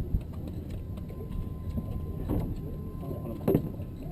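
Boat engine running steadily with a low rumble, with a few short knocks and thumps on deck.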